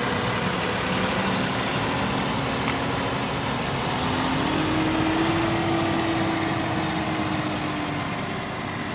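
John Deere 6175R tractor's six-cylinder diesel engine running steadily under load while pulling a reversible plough. Its pitch rises slightly about four seconds in and eases off near the end.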